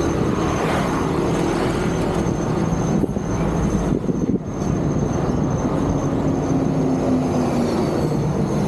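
Steady motor traffic on a busy main road: engines and tyres of passing vehicles in a constant noisy din, with engine tones shifting as vehicles go by.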